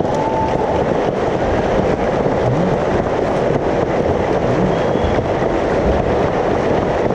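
Audience applauding steadily in a theatre.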